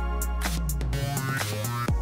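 Electronic background music with a beat, its bass line stepping downward through the middle.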